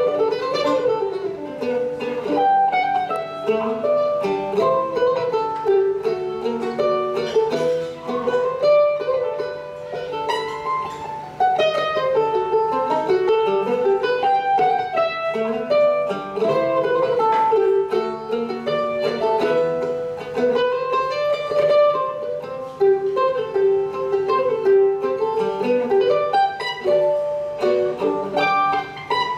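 Mandolin picked in a flowing melody of quick single notes and chords, played through without a break.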